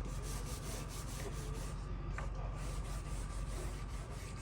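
Continuous scratchy rubbing and scraping of a metal hand tool against teak planks, with small irregular ticks, as old brad nails and staples are worked out of the wood.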